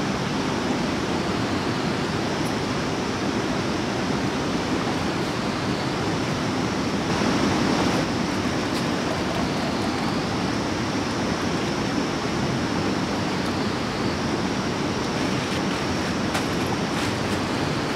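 Steady rush of running water from a small spring, with water poured from a plastic jerrycan into a metal water pot. The sound swells briefly about seven seconds in.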